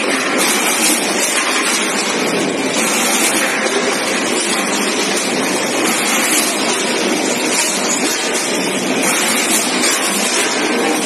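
Steady, loud mechanical running noise of an automatic weighing and packing line (SF-720WM) at work, with its multihead combination weigher handling frozen chicken pieces.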